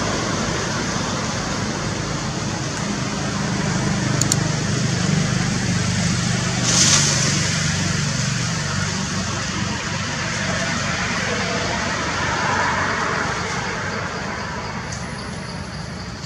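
A motor vehicle engine running, with a steady wash of road-traffic noise; the engine hum is strongest in the middle and fades toward the end.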